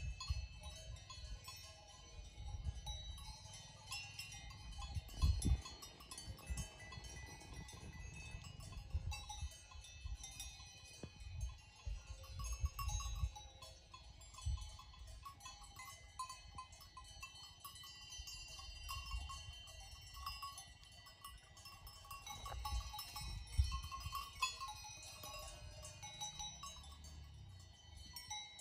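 Cowbells worn by grazing livestock clanking and ringing irregularly and continuously, several bells overlapping, as the animals move and feed. Intermittent low rumbles sit underneath.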